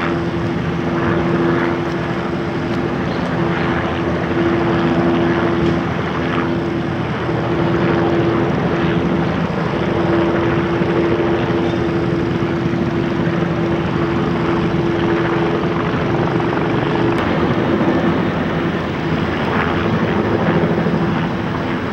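An engine drones steadily with a strong, slightly wavering hum over a continuous rushing noise.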